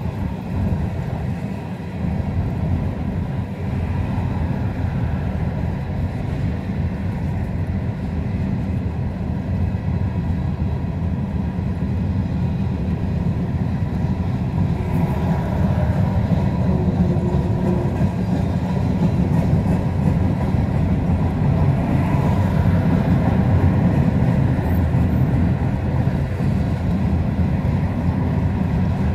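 Kansas City Southern de México freight train's open-top cars rolling past, a steady low rumble of wheels on rail.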